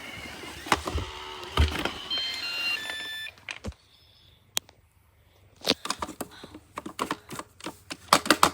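Robot vacuum running with its motors going, playing a short series of stepped electronic beeps at different pitches before its running stops abruptly about three seconds in. A couple of single clicks follow, then a quick rattle of clicks and knocks.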